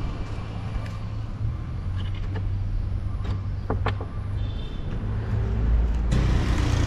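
A motor vehicle engine running steadily in a low rumble, with a few light clicks and a rise in rushing noise near the end.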